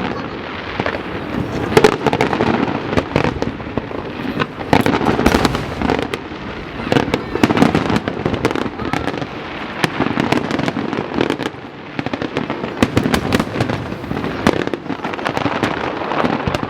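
Aerial fireworks bursting overhead: a dense, irregular run of bangs, one after another.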